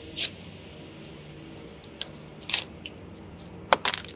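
A paper ticket being torn up by hand: a few short, sharp rips, one just after the start, another about two and a half seconds in, and the loudest cluster near the end.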